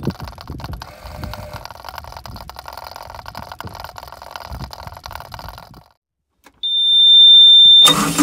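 Clicking and rattling around a Cat 304 mini excavator's fuel filter and primer while its fuel system is bled after running dry. After a short break there is a steady high-pitched warning beep for just over a second, and near the end the diesel engine is running loudly.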